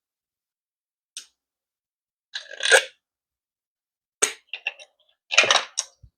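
A 90-tooth hand ratchet clicking in several short runs as its handle is swung back and forth, with handling knocks; the loudest run comes about two and a half seconds in.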